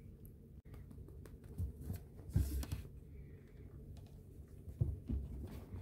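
Quiet rustling with scattered soft clicks and low thumps as a hand strokes a long-haired cat's fur, with a louder rustle about two and a half seconds in.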